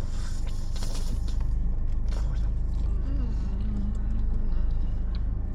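Steady low rumble of a car running, heard from inside the cabin. There is rustling in the first second or so, and a brief hummed voice a little past the middle.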